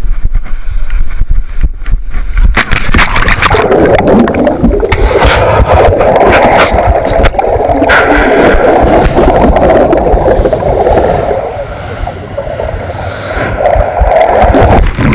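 Water rushing and bubbling against a GoPro's waterproof case as it tumbles in shallow surf, with scattered knocks and scrapes on the housing. It sounds muffled and dense, with a low rumble at first, and grows fuller about four seconds in.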